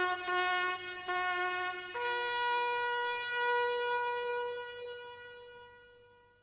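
A single wind instrument playing a few repeated notes, then stepping up about two seconds in to one long held note that fades away.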